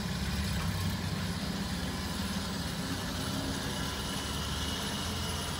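Jaguar E-Type's straight-six engine running steadily at low revs as the open roadster creeps forward at walking pace.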